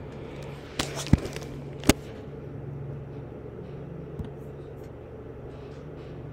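A few sharp computer mouse clicks, two of them loud and under a second apart near the start, over a steady low hum.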